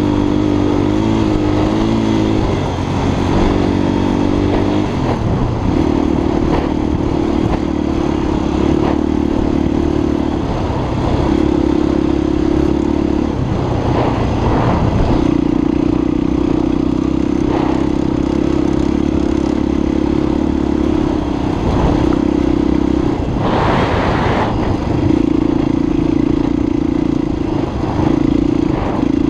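Honda XLR250 enduro motorcycle's single-cylinder four-stroke engine running under way, the revs held steady for stretches and dropping briefly several times. A short rushing burst of noise comes about three-quarters of the way through.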